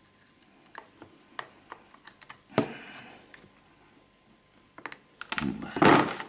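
Scattered light clicks and snips of small metal hand tools cutting and working the anchoring wires off a potted bonsai. Near the end comes a louder, noisy burst of handling.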